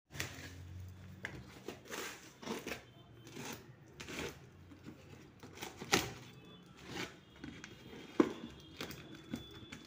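Cardboard box and its clear packing tape and plastic wrapping being handled and torn at: irregular rustling, crinkling and tearing, with a few sharp knocks, the loudest about six and eight seconds in.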